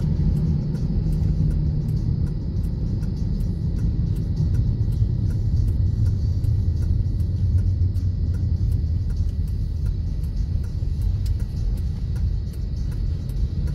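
Steady low rumble of road and engine noise heard inside a moving car's cabin, with faint music playing underneath.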